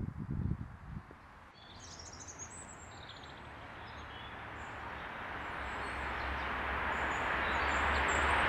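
Small songbirds chirping in short scattered calls over a rushing background noise with a low hum that grows steadily louder, typical of distant road traffic heard through woodland. A few low thumps in the first second.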